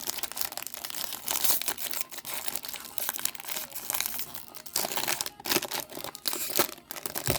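Plastic-foil trading card pack wrapper being handled, torn open and crinkled, with continuous irregular crackling and crunching.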